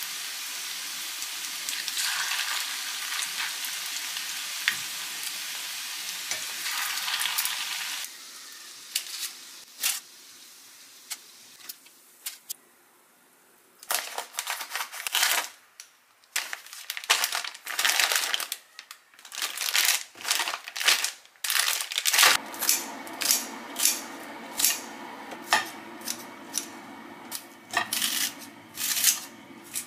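Beef balls sizzling as they shallow-fry in oil in a cast-iron skillet. After a cut, scissors cut open a plastic food packet with crinkling, then snip green onions in quick repeated clicks over a steady low hum.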